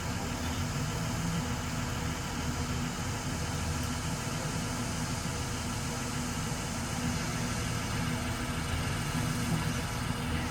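Engine idling steadily, a constant low hum with no change in speed.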